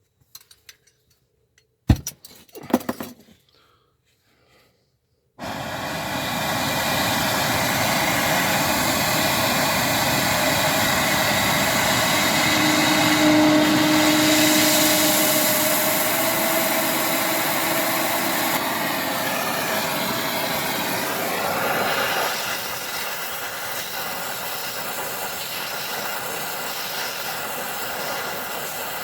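A few clicks and knocks, then about five seconds in an oxy-acetylene torch flame starts suddenly and burns with a loud, steady hiss, easing a little near the end. It is preheating a sacrificial bolt that is to be fused onto a stripped oil pan bolt head.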